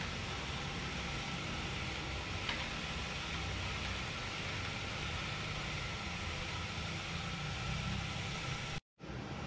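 A BMC road bike being pedalled on an indoor trainer, running with a steady whirring drone and hiss. The sound drops out for a split second near the end.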